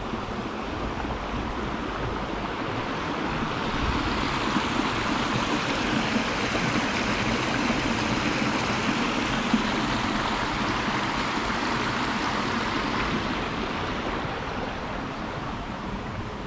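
A small stream cascading over rocks in a low waterfall, a steady rush of water that grows louder about four seconds in and fades again near the end.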